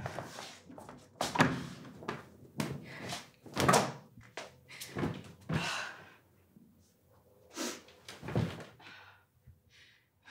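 A series of irregular bangs and thumps, about eight heavy ones spread unevenly with lighter knocks between them.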